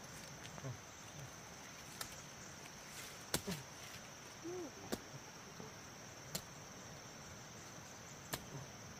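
Insects keeping up a steady high-pitched drone, with about five sharp clicks or knocks scattered through it, the loudest about a third of the way in.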